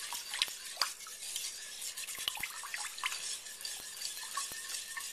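A wire whisk beating a thick soup-and-broth mixture in a slow-cooker's glazed crock: a continuous wet swishing with frequent light clicks of the wires against the crock.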